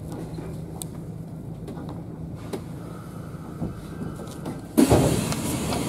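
Inside a Kintetsu electric train pulling to a stop at a station: a low steady running hum, then about five seconds in a sudden loud rush of noise as the doors slide open.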